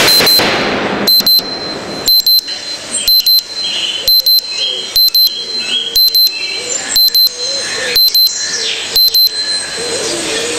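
Alarm clock beeping in short double beeps, about one pair a second, stopping shortly before the end. A loud rushing noise fades out over the first second.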